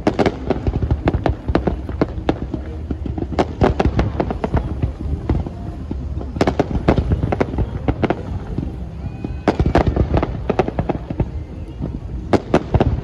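Aerial fireworks going off in a dense string of sharp bangs and crackles, with clusters of rapid reports several times over a steady low rumble.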